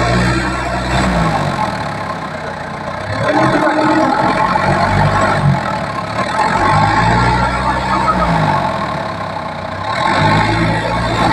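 Engine of a teak log-hauling machine running under load, its pitch rising and falling in repeated cycles roughly every three seconds as it works.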